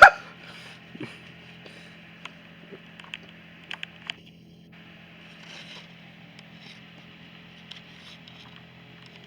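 Faint static hiss and steady hum from a weather radio receiver's open channel, with scattered small clicks and scrapes. The hiss cuts out briefly about four seconds in.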